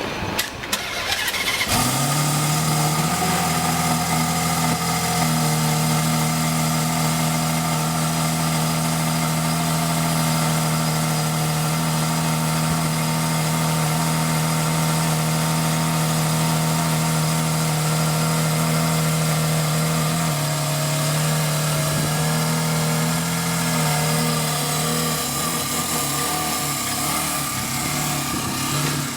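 Ferrari Enzo's V12 engine being started: the starter cranks briefly, the engine catches about two seconds in and settles into a steady idle, which shifts slightly in pitch a few times.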